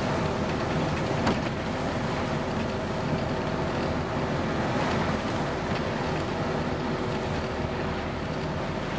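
Interior noise of a Scania N230UD double-decker bus on the move, heard from the upper deck: a steady drone from its five-cylinder diesel engine mixed with road noise, and a brief knock about a second in.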